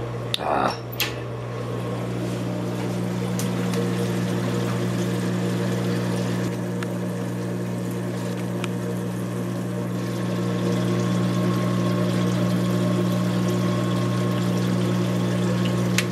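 Reef aquarium sump running: a steady electric pump hum, with water splashing and trickling through the sump and protein skimmer. There are a few brief clicks just after the start.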